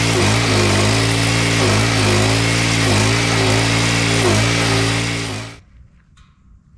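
Petrol stump grinder's 420 cc engine running hard, its pitch sagging briefly about every second and a half as it takes load. It cuts off suddenly about five and a half seconds in, leaving a couple of faint knocks.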